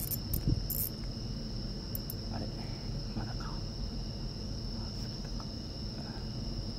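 Insects trilling steadily at a high pitch, an unbroken chorus over a low background hum.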